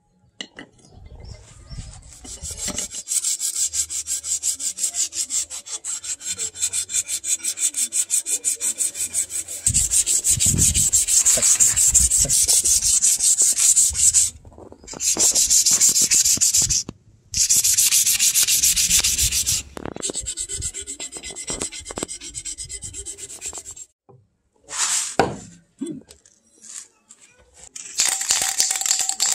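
Sandpaper rubbed by hand along a wooden axe handle: quick, even back-and-forth strokes at first, then longer unbroken passes with short pauses. Near the end a spray can is shaken, its mixing ball rattling.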